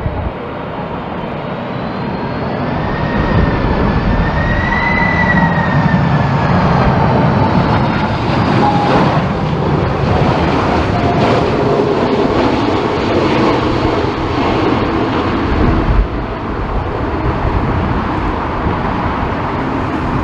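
Boeing 747 jet engines on landing approach: a loud rumble with a high engine whine that rises and then falls in pitch as the plane passes, growing louder over the first few seconds. There is a single thump about sixteen seconds in.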